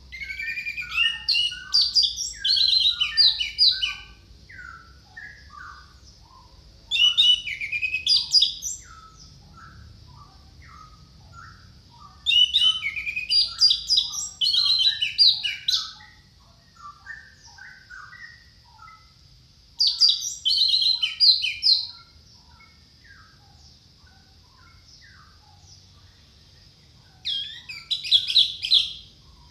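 Orange-headed thrush singing: five loud bursts of rapid, varied whistled phrases, each two to four seconds long, with softer scattered chirps in the gaps between them.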